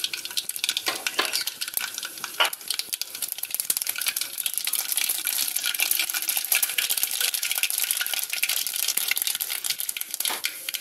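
Mustard seeds popping and spluttering in hot oil in a metal pan, a dense crackle of small pops that thickens after the first few seconds, with a few louder clicks.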